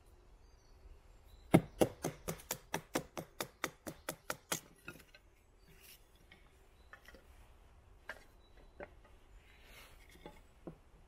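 Wooden mallet striking the spine of a small bushcraft knife (Taxus Wisdom, 9 cm blade), batoning it through a piece of wood for small kindling. A quick run of about fifteen sharp knocks in three seconds, starting about a second and a half in, is followed by a few single knocks.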